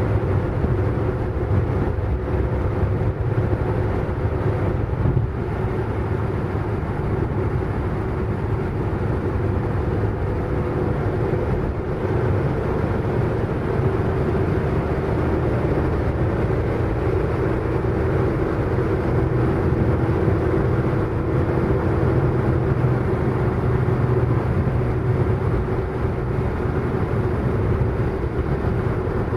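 Car driving at a steady fast speed: a constant engine hum with road and tyre noise, its pitch shifting only slightly.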